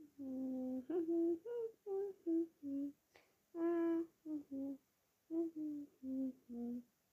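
A girl humming a tune in a string of short, separate notes, some held a little longer, with brief pauses between them.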